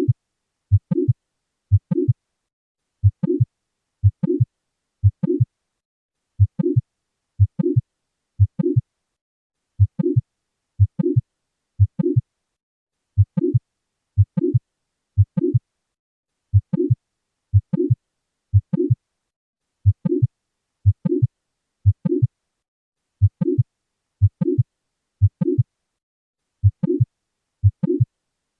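Recorded heart sounds of mitral valve prolapse, as heard through a stethoscope. Each beat has a first heart sound, a short murmur in systole and then the second heart sound, repeating about once a second.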